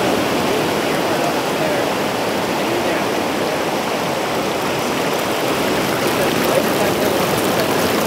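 Shallow water flowing steadily over beach sand where it runs into the ocean: an even, unbroken noise.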